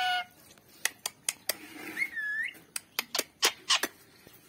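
Rose-ringed parakeet (Indian ringneck): the end of a call at the start, then a string of sharp clicks and one short swooping whistled note about two seconds in.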